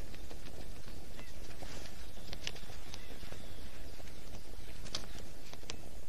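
Forest ambience picked up by a stork-nest webcam microphone: a steady low rumble, with scattered short, high ticks and chirps over it.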